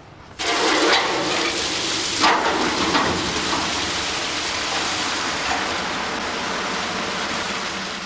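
Water gushing into block-ice moulds to fill them, starting suddenly about half a second in, loudest for the first two seconds, then running on steadily.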